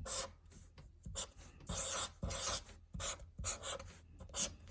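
Writing on a board: a run of short, quick scratching strokes as a word is written out.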